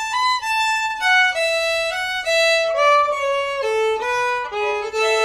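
Solo fiddle bowing a short ending phrase in A: a run of single notes that mostly steps downward and settles on a long held note near the end.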